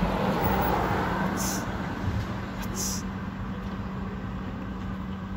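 Road traffic passing on a city street: a steady rumble with a low, even hum under it, a little louder in the first second or two.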